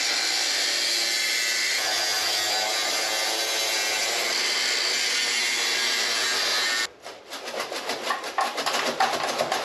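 Angle grinder with a cutting disc running steadily as it cuts through the motorcycle's steel exhaust pipe at the weld point, to separate the catalytic converter section. The grinder stops abruptly about seven seconds in. A few seconds of rapid clattering and rattling follow.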